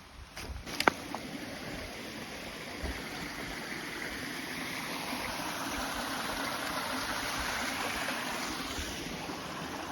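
Steady rushing of a waterfall, an even hiss that grows louder through the middle and eases slightly near the end. A few sharp knocks sound in the first second, the loudest about a second in.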